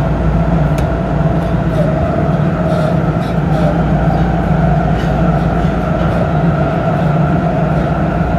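Nagoya subway Higashiyama Line 5050 series train running at steady speed through a tunnel, heard from on board. There is a continuous rumble of wheels on rail with a steady, unchanging hum from the running gear.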